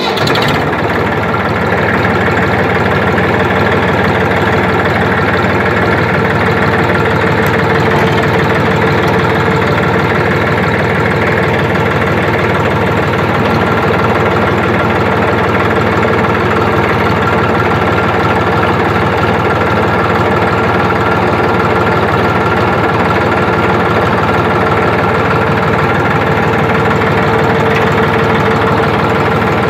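Massey Ferguson 2605 tractor engine catching right at the start and then running steadily, as the tractor is driven slowly in first gear low range and then in reverse low range.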